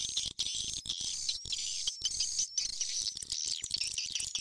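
Recorded swiftlet calls used to lure swiftlets into a nesting house: an old-style swiftlet call mixed with an 'inap' roosting call. The sound is a dense, fast twittering and clicking, with a short high rising whistle repeating about twice a second.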